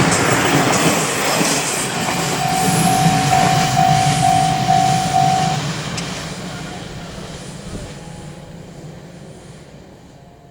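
A train running past over a level crossing, its rumble fading away steadily as it recedes. Through it the crossing's warning bell dings about twice a second, then stops about five and a half seconds in.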